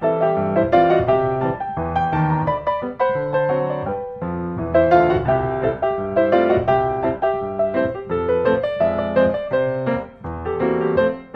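Background piano music: a melody over chords, with a brief pause about ten seconds in.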